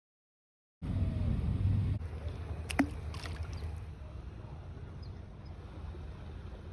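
Steady low rumbling outdoor noise on a phone microphone, starting abruptly about a second in and loudest at first, with one short sharp squeak about three seconds in.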